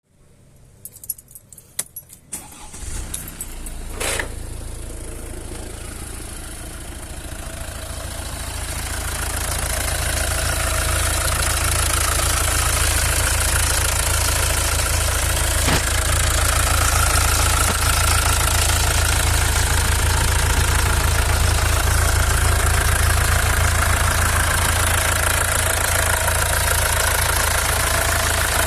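Mercedes W212's OM651 four-cylinder diesel being started with its accessory drive belt removed, then idling. A few clicks and rattles come before it catches about three to four seconds in, and it grows louder over the next several seconds before holding steady. The weird noises are still there with the belt off.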